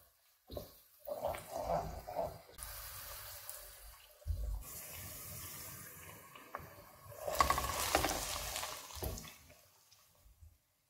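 Onions and tomato paste sizzling in a pot while a wooden spoon stirs and scrapes them, with a steady frying hiss. About seven seconds in, boiled white beans are tipped in from a colander, the loudest part, with a burst of sizzle and the beans sliding in.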